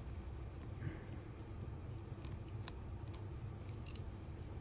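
A few faint, sharp clicks and ticks of small tools against tiny phone screws and a metal bracket, scattered over about two seconds near the middle, over a steady low hum.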